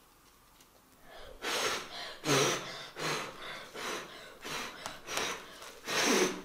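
A person's loud breathy gasps, one after another about twice a second, starting about a second and a half in.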